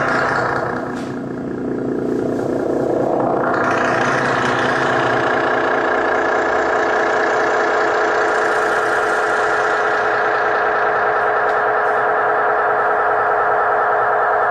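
Loud, dense noise-music drone, many tones stacked in a thick distorted wall run through effects. It thins briefly about a second in, then swells back at about three and a half seconds and holds steady.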